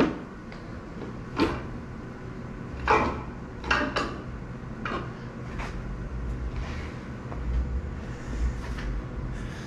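Tools and metal engine parts being handled during an engine teardown: about seven sharp clanks and knocks in the first six seconds, over a steady low hum.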